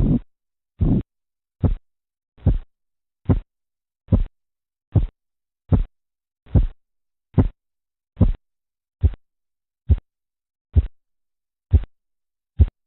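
Korotkoff sounds heard through a stethoscope over an artery under a deflating blood pressure cuff: a regular pulse of low thumps, about one every 0.8 seconds. The first few are longer and smeared; later they become short, sharp taps.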